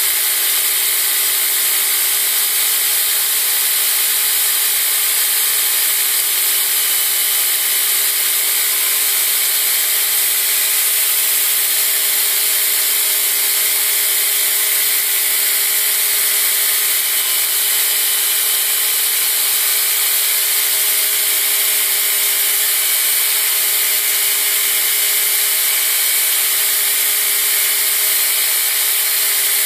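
Belt grinder running steadily while a steel push-dagger blade, held in a bevel jig, is ground against the moving abrasive belt. It is an even, unbroken hiss with a steady hum beneath.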